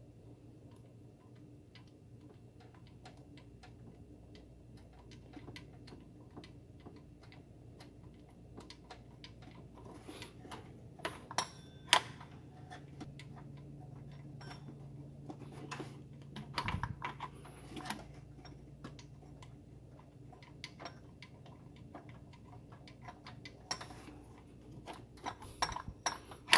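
Scattered light metallic clicks and taps of an 8 mm Allen key working the belt tensioner bolt out by hand, with one louder click about twelve seconds in and small clusters of clicks later on.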